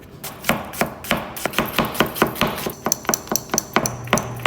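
Rapid series of sharp kitchen knocks, about three or four a second, each with a short ring. A low steady hum comes in near the end.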